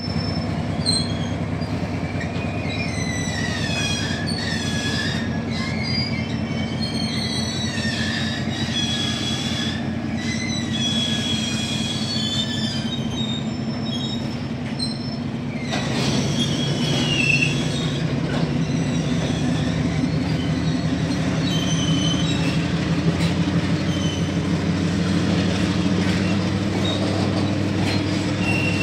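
Freight train of covered goods wagons rolling past: a steady rumble of wheels on rails, with wavering high-pitched squeals from the wheels. It grows a little louder about halfway through.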